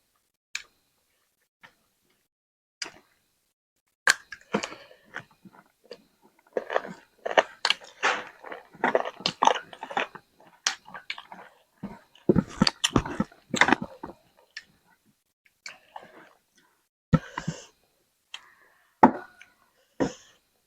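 Close-miked chewing and biting as a person eats chicken: a run of quick wet mouth clicks and bites, sparse at first, dense through the middle, then a few single smacks near the end.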